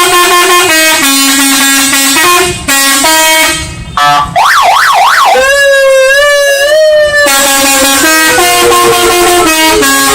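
Telolet multi-tone bus air horn playing a melody of stepped held notes. About four seconds in it switches to a fast rising-and-falling siren wail, then a wavering tone that slides slowly down, before the stepped melody resumes.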